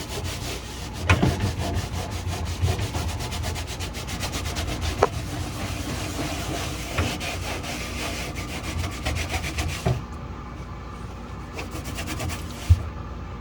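Cloth pad scrubbing back and forth on a wet fridge surface in fast, steady strokes, easing off about ten seconds in; a short knock sounds near the end.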